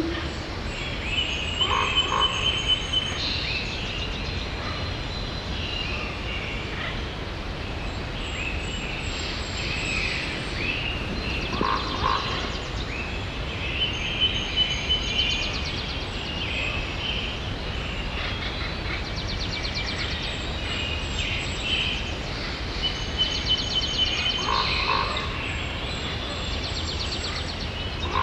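Steady rain hiss with animal calls over it: clusters of high chirping and trilling calls come and go every several seconds.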